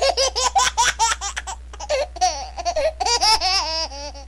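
A woman's high-pitched laughter, quick repeated 'ha' sounds at first, then drawn-out wavering sounds that slide up and down in pitch.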